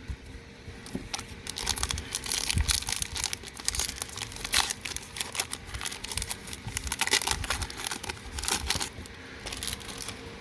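Foil wrapper of a Magic: The Gathering booster pack crinkling and crackling as it is torn open and handled. The dense crackle starts about a second in and dies down near the end.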